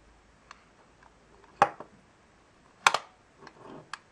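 A small candy box with a metal wire handle being picked up and handled: two sharp clicks or knocks about a second and a half and three seconds in, then lighter clicks and a brief rustle near the end.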